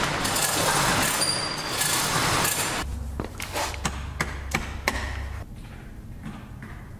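Steel roll-up door rattling as it is raised by its hand chain. The rattling stops about three seconds in, and a series of about seven sharp clicks follows as wall rocker switches are flipped, over a low hum.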